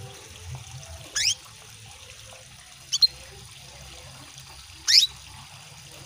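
Female canary calling to a male: three brief chirps about two seconds apart, each sweeping quickly downward in pitch, the middle one shortest. A steady trickle of water runs beneath.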